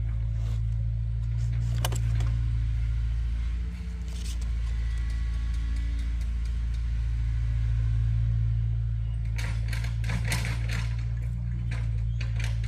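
A motor vehicle's engine running steadily with a low hum that dips briefly about four seconds in, along with occasional knocks and rattles.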